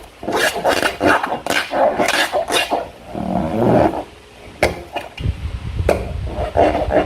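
Slime being squished and worked by hand: irregular wet, crackly squelches with a few sharp sticky clicks, and a low handling rumble from about five seconds in.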